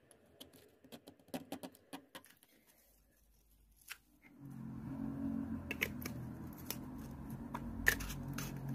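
Light clicks and taps of small wooden pieces being handled and pressed together. About four seconds in a steady low hum starts and runs to the end, with more sharp clicks over it.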